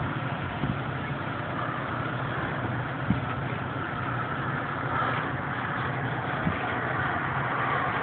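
Steady rushing roar of a scale model SR-71's twin P-120 model jet turbines in flight, with three short knocks.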